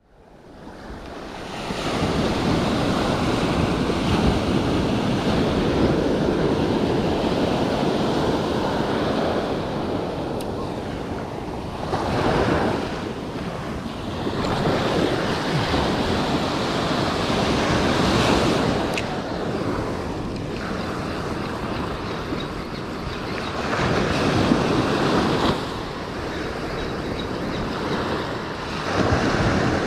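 Surf breaking and washing up a sandy beach, swelling and ebbing every few seconds, with wind on the microphone. The sound fades in over the first couple of seconds.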